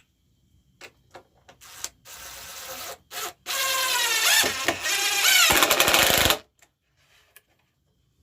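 A few knocks of wood, then a handheld power tool running: a short softer stretch, then a loud run whose pitch dips twice, as if under load, before it stops.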